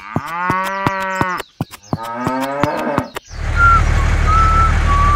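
A cow mooing twice, a long call and then a shorter, falling one, over a run of sharp clicks. A little over three seconds in, this gives way suddenly to a steady low engine drone with an intermittent wavering high beep.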